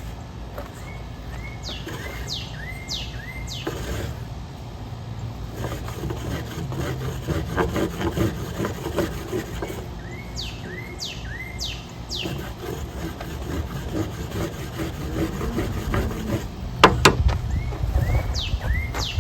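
A songbird sings a phrase of four quick down-slurred whistles three times, about eight seconds apart. Under the song is a low, uneven rustling and scraping, with a sharp crack near the end.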